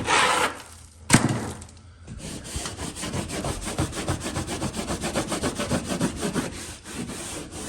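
Hand tool scraping a dried plaster patch to shave down its raised ridge: a short scrape, one sharp click about a second in, then rapid back-and-forth scraping strokes, about eight a second.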